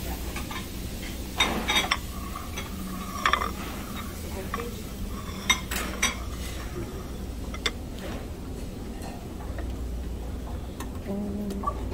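Metal serving tongs clinking against stainless steel buffet pans: a scattering of sharp clinks, a few at a time, over a steady low hum.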